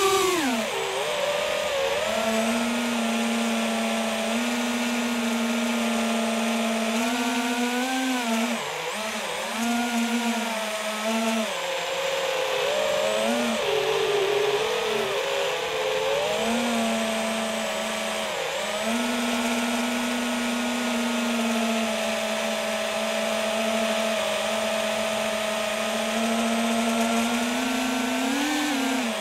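FPV drone's electric motors and propellers whining, the pitch rising and falling with throttle. It holds a steady hum for long stretches, with throttle surges around a third of the way in, between about halfway and two-thirds in, and a sharp climb in pitch at the very end.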